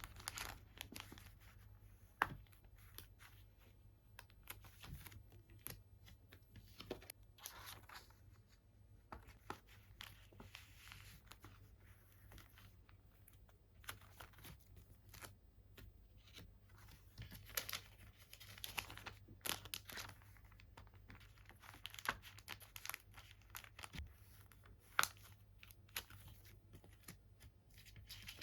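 Plastic merchandise packaging crinkling and tearing, heard as faint, irregular crackles and small clicks while bags are handled and opened, with a few sharper snaps.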